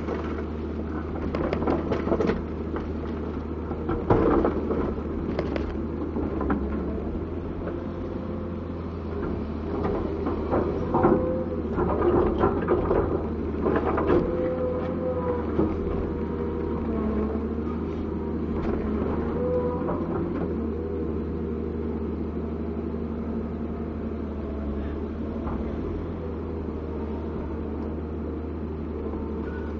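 Komatsu PC200-7 excavator's six-cylinder diesel engine running with a steady low hum and a whine that shifts in pitch. Clanks and knocks come through roughly the first half, then it settles to a steady run.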